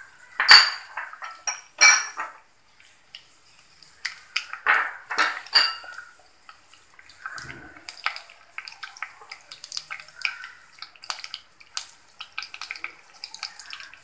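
A metal spoon clinking and scraping against a kadai, with several loud ringing clinks in the first few seconds. Then many small pops and crackles from mustard and fenugreek seeds spluttering in hot gingelly oil.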